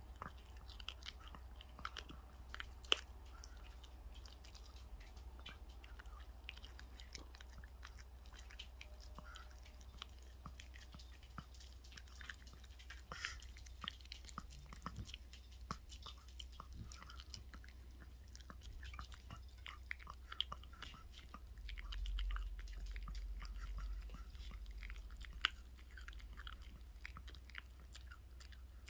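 A small dog chewing and gnawing raw chicken held in a hand, with irregular clicks of its teeth and jaws throughout.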